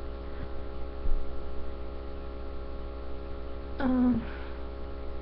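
Steady electrical mains hum in the recording, with a brief voice sound about four seconds in.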